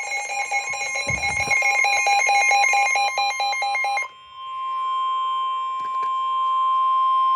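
Emergency alert attention tones: a harsh two-pitch tone pulsing in a fast, even rhythm for about four seconds. After a brief dip it gives way to a single steady high tone, held without a break.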